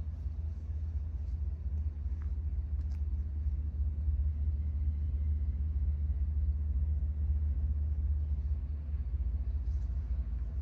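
Low, steady rumble of a distant diesel locomotive, swelling slightly partway through.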